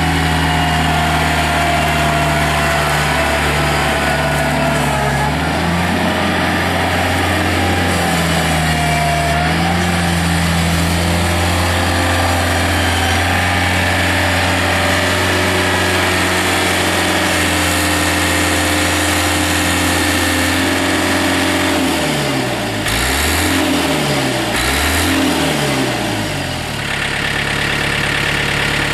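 John Deere 110 tractor loader backhoe's Yanmar diesel engine running steadily, its pitch shifting a little now and then; near the end the engine speed drops and comes back up twice in quick succession.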